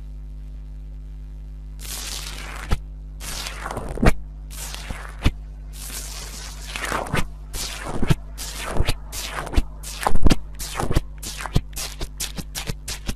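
Slime being squeezed and pressed by hand: a run of squelches and sharp clicky pops that starts about two seconds in and grows denser, over a steady low hum.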